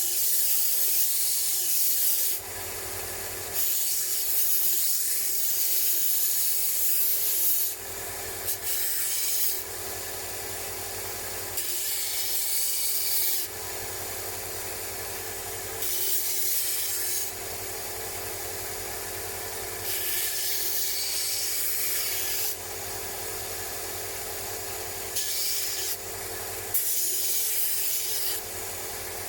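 Motor-driven wire wheel running steadily, with a harsh scouring noise each time a rusty steel wrench is pressed against it to strip rust, in repeated passes of a few seconds with quieter gaps between.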